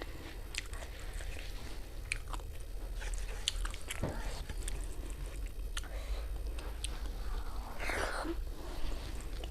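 Close-up chewing and biting of food, with many small irregular clicks and crunches over a steady low hum.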